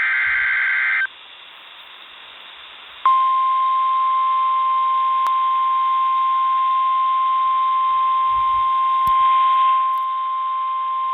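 Weather-radio emergency alert: a buzzy SAME digital data burst ends about a second in. After two seconds of radio hiss, the steady single-pitch 1050 Hz NOAA Weather Radio warning alarm tone starts and holds, signalling that a warning message follows.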